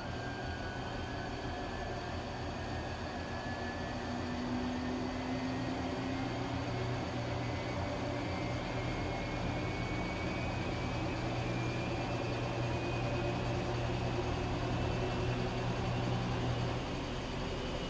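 Washing machine running: a steady mechanical hum with a thin motor whine that climbs slowly and evenly in pitch throughout, as the drum speeds up.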